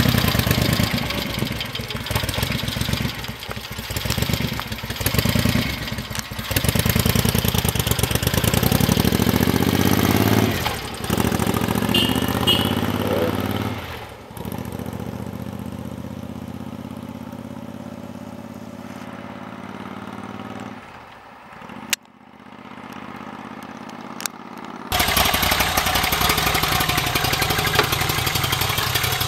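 Moto Guzzi transverse V-twin motorcycle revving and pulling away, its engine pitch rising as it accelerates. The engine is then heard fainter and further off for several seconds, with two short clicks, before a second Moto Guzzi V-twin idles steadily near the end.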